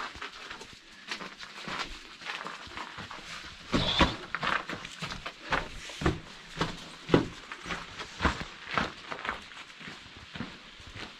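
Footsteps crunching along a gravel path through a stone-walled tunnel, about two steps a second.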